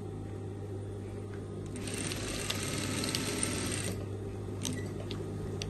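Industrial straight-stitch sewing machine running a fast burst of stitching for about two seconds as it sews elastic onto a waistband, over a steady low hum, followed by a few sharp clicks.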